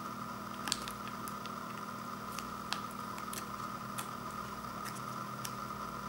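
Small plastic sauce sachet crinkling as fingers pick at it and tear it open, with a few sharp crackles scattered through. A steady hum runs underneath.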